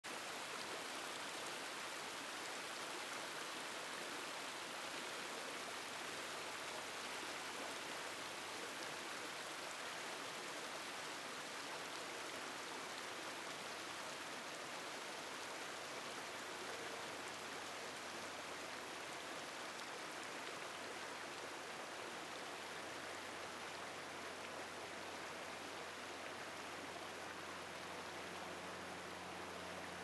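Forest stream rushing steadily over rocks in small rapids.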